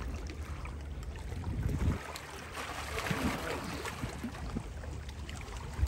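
Small waves lapping and splashing against jetty rocks, with wind rumbling on the microphone for the first two seconds.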